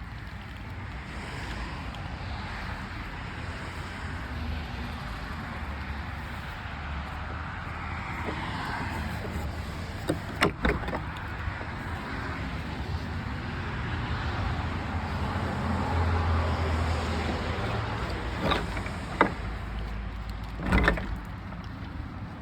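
Road traffic passing on a busy road, its tyre and engine noise swelling and fading, with a few sharp knocks about ten seconds in and again near the end.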